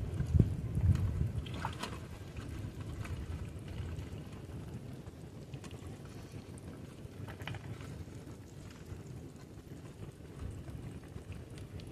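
Wind rumbling on the microphone, strongest in the first couple of seconds and then easing, with a few faint clicks.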